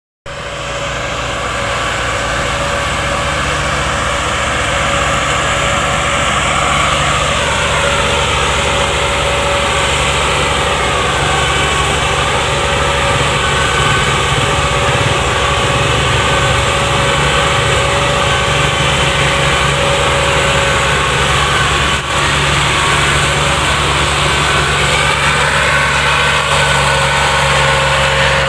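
Massey Ferguson 240's three-cylinder diesel engine running steadily while hauling a heavily loaded sugarcane trolley, its pitch rising and falling slightly a few times.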